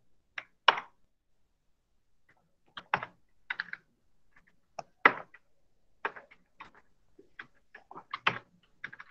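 Computer keyboard keystrokes: two quick clacks, a pause of nearly two seconds, then a run of uneven keystrokes.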